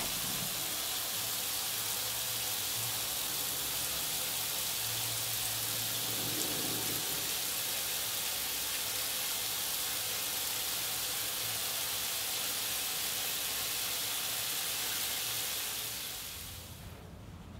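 Shower water spraying steadily and falling on a person's head and face, an even hiss that fades out near the end.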